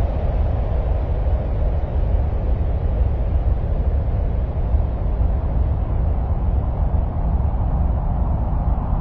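Steady, deep rumbling noise of a space-ambient 'sound of Mars' track, heaviest in the low end and dull at the top, with no changes or events.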